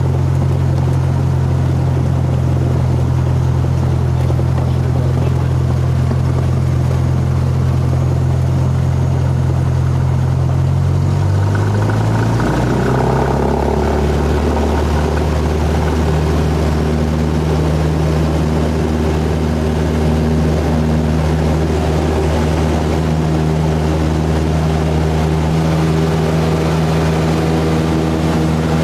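Cessna 172's piston engine and propeller droning steadily, heard from inside the cabin. About twelve seconds in, the engine's pitch shifts over a couple of seconds, then holds steady again at the new setting.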